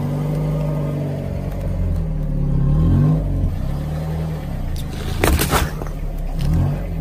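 A car engine running low as the car creeps forward, its pitch rising and falling a few times. About five seconds in, a short burst of loud crunching and cracking as a watermelon splits under the front tyre.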